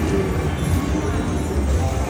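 Slot machine's electronic game music and jingles playing over steady, dense background noise.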